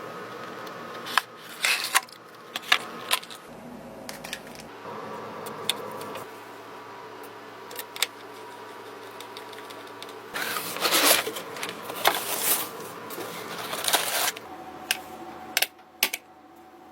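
Sharp clicks and taps of computer parts being handled and fitted together, with a longer stretch of scraping and rustling between about ten and fourteen seconds in, over a steady hum.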